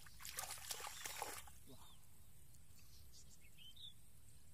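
Hands splashing and squelching in shallow muddy water for about the first second and a half, then a low background with a couple of faint bird chirps.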